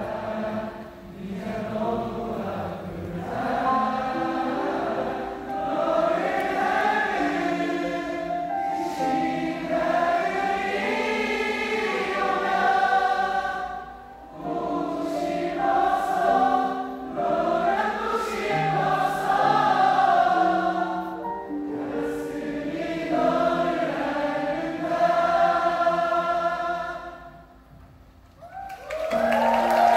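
A crowd of many voices singing a slow ballad together, held notes in phrases with short breaks between them. Near the end the singing drops away briefly, then louder music comes in.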